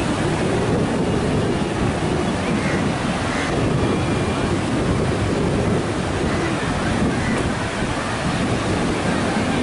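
Ocean surf breaking on a sandy beach, a steady wash of waves, with wind buffeting the microphone.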